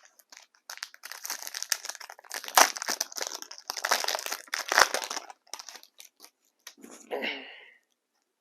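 Trading card pack wrapper being torn open and crinkled by hand, a dense crackling rustle with a couple of louder rips, then a few light clicks and a short last rustle near the end.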